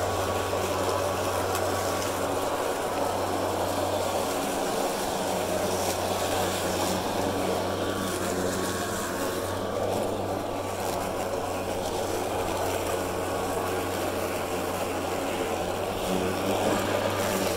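Kobalt 80V battery electric self-propelled lawn mower running while cutting grass: a steady motor-and-blade hum with a thin high whine over it.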